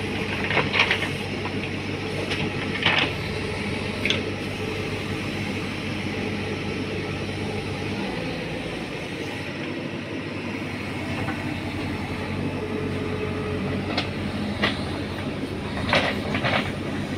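Diesel engine of a double-drum road roller running steadily, with a few sharp metallic clanks near the start and again near the end.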